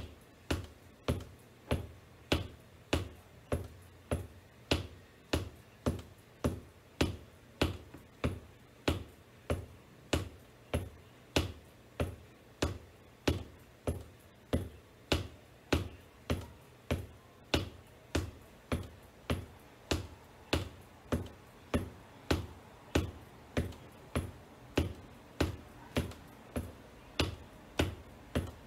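Black wedge ankle boots tapping on a hardwood floor in a steady rhythm of about two taps a second.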